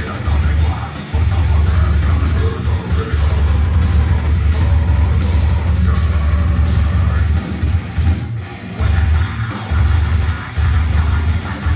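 Loud live rock band playing, heard from within the audience: electric guitars and bass over a drum kit with crashing cymbals. The band breaks off for a moment about eight seconds in, then comes straight back in.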